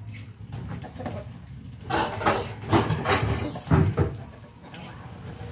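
Dishwashing at a sink under a running tap: a cup being scrubbed and handled, with a quick run of knocks and clatters against the sink and dishes in the middle.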